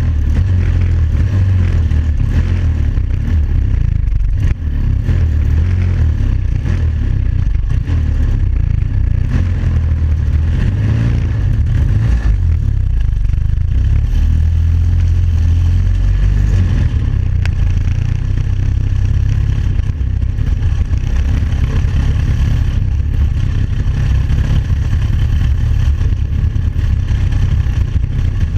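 The homemade buggy's 350cc engine running steadily as the buggy drives off, heard from on board the bare steel frame.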